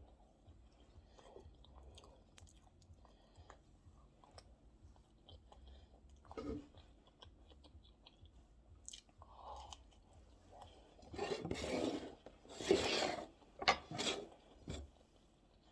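A person chewing food close to the microphone, with soft clicks and crunching. A few louder, noisier stretches come in the last few seconds.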